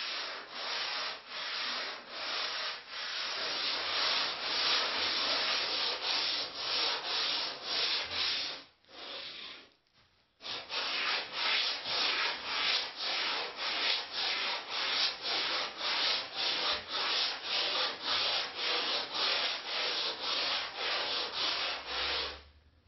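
Hand sanding of cured Bondo body filler on a fiberglass-covered plug with a long foam-rubber sanding spine, in steady back-and-forth strokes at about two a second. The strokes pause briefly about nine seconds in, then resume and stop near the end.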